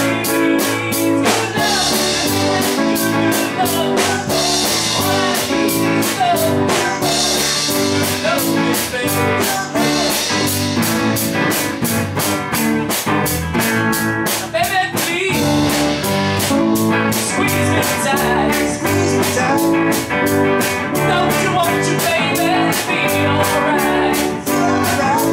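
A small band playing live: a drum kit keeping a steady beat under electric guitar, with a man singing into a microphone.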